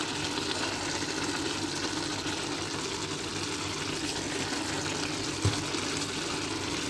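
Tomato sauce with onion and cilantro simmering and sizzling steadily in a frying pan, with a single knock about five and a half seconds in.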